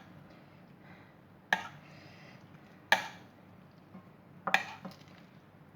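A kitchen utensil knocking against a dish three times, sharp and brief, about a second and a half apart, while masala is worked into a raw mutton leg.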